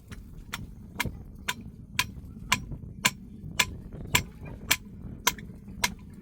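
Sharp, evenly spaced ticking or tapping, about two clicks a second, that stops near the end.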